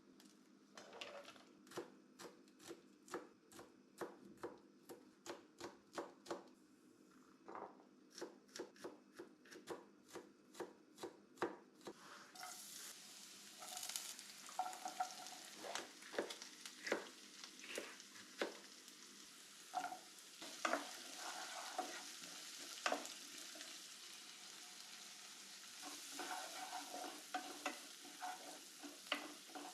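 A knife chopping on a cutting board, about two strokes a second, for the first twelve seconds or so. Then hot oil starts sizzling in a pan, with a spatula knocking and scraping as the food is stirred.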